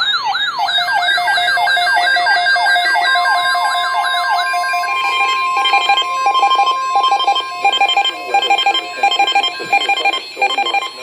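Electronic alert siren wailing in quick up-and-down sweeps, about three a second. About three seconds in, a steady high alert tone joins it. The sweeps stop after about four and a half seconds and give way to rapid electronic beeping in short bursts over the continuing tone.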